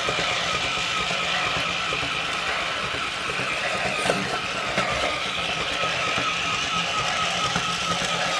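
Battery-powered toy robot dinosaur's small electric motor and plastic gearbox whirring steadily with a wavering whine and a light rattle as the toy runs.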